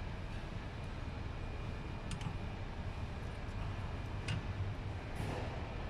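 Two light clicks of strut parts being handled and fitted during front strut assembly, over a steady low hum.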